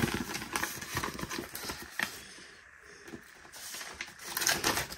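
Plastic bags of diamond-painting drills and a paper sheet being handled, giving an irregular crinkling and rustling. It is busiest in the first second or so, thins out in the middle and picks up again near the end.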